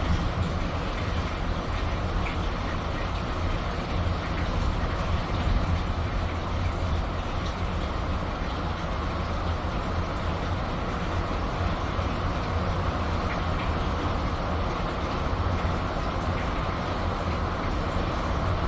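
Steady rain, with a constant low rumble underneath and a few faint ticks.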